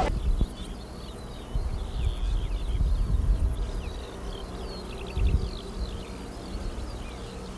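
Open-country ambience: many short high chirps, trills and buzzing from birds and insects, over a low steady rumble.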